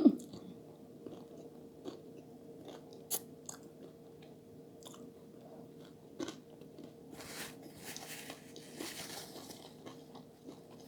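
Close-miked chewing of lasagna and garlic bread: soft wet mouth clicks and crunches, with a short loud sound right at the start.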